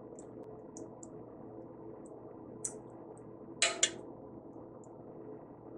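A metal spoon clinking against glass bowls and a steel pot while cooked rice is spooned out: a few light clinks, the loudest a quick pair about three and a half seconds in, over a faint steady background hum.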